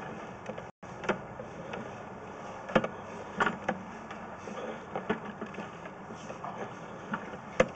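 An engine idling steadily, with irregular sharp clicks and knocks over it; the sound cuts out for an instant near the start.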